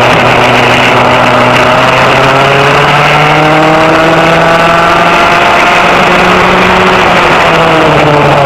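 Vintage rear-engine racing go-kart engine heard on board, very loud, at speed. Its pitch climbs slowly as the kart speeds up, drops about two-thirds of the way through as it slows for a corner, then rises again near the end.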